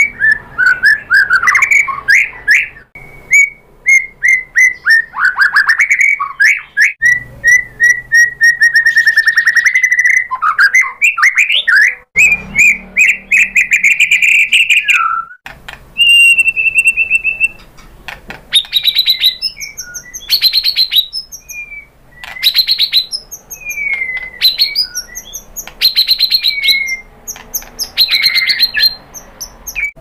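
Male white-rumped shama singing a long, varied song. The first half is clear whistles and fast trills; the second half is repeated phrases of sharp notes and downward-swooping whistles.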